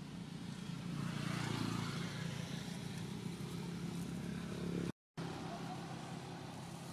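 Motor vehicle engine hum with traffic noise, swelling about a second in and easing off. The sound cuts out for a moment about five seconds in.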